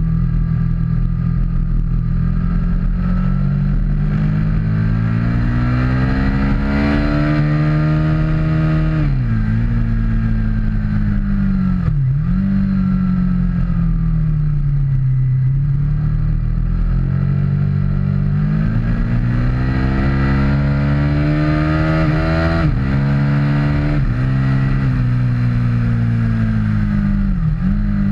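Aprilia RSV Mille R's V-twin engine at racing speed, the pitch climbing through the revs and dropping suddenly at each upshift, with a few quick shifts in a row about two-thirds of the way in. In the middle it falls away slowly as the bike slows for a corner, then pulls hard again.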